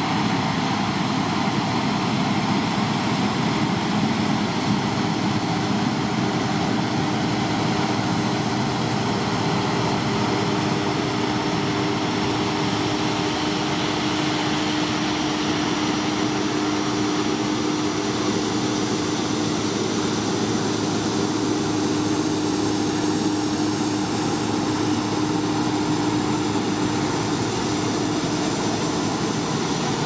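Claas Lexion 570 combine harvester and a Fendt tractor running side by side in the field as the combine unloads barley through its auger on the move: a steady machinery drone with a constant hum that grows stronger from about ten seconds in.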